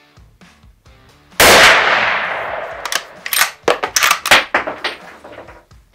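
A .308 Mauser M12 Max bolt-action rifle fires one shot about a second and a half in, the report ringing away over the next second or so. Several sharp clacks follow as the bolt is worked.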